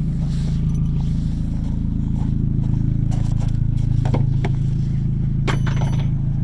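Mk4 VW Golf engine idling steadily. Near the end come a few clicks and knocks as the car's door is unlatched and opened.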